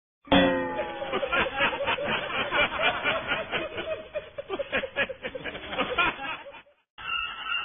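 Laughter, snickering and chuckling in quick pulses, starting with a falling pitched sound and cutting off suddenly shortly before the end.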